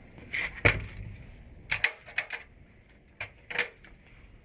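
Sharp plastic clicks and knocks, about seven in irregular succession: the Dastprom PP-220/15.1-1.5 construction vacuum's housing and latches being handled while it is opened, with the motor off.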